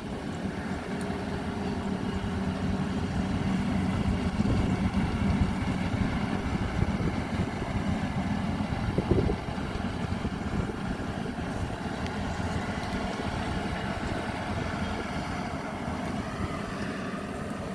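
Maxxi Bimo 102 rice combine harvester running steadily, a constant engine hum under the noise of the working machinery. It gets somewhat louder for a few seconds in the middle.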